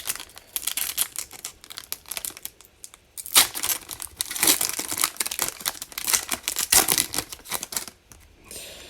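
A 2020 Certified Football trading-card pack being torn open, its wrapper crinkling and ripping in irregular crackling bursts.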